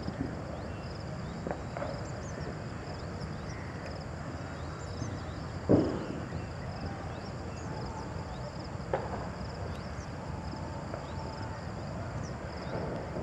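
Outdoor ambience: a steady low rumble with faint, high, short chirps over it, and one sharp knock about six seconds in, with a smaller one near nine seconds.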